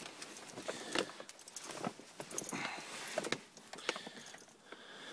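Car keys jingling and clicking as the key is worked into the ignition, with scattered irregular knocks and rustles; no engine running yet.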